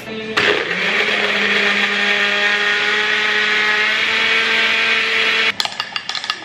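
Countertop blender crushing ice with piña colada mix. The motor starts about half a second in, rises briefly to speed and runs steadily, then switches off about a second before the end. After it stops there are a few sharp knocks.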